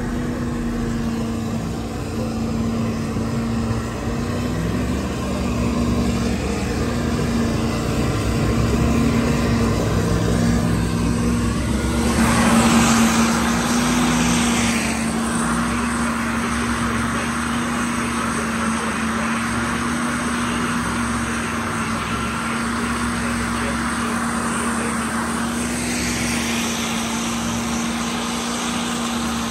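Truck engine running steadily under load, heard from inside the cab as it drives through a mud pit. About twelve seconds in, a loud rushing hiss joins and carries on over the engine.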